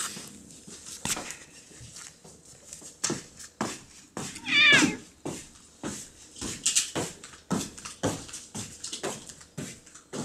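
A domestic cat meows once, a wavering call about four and a half seconds in, amid a run of short sharp clicks.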